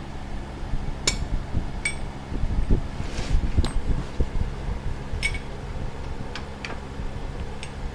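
Electric fan running with a steady hum, with about seven light metallic clinks of hand tools on metal scattered through it.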